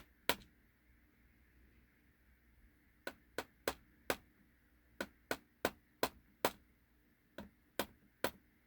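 Sharp little metal taps and clicks as the pins are knocked out of an Ultion euro lock cylinder. One tap comes near the start, then after a pause a string of about a dozen, two to three a second.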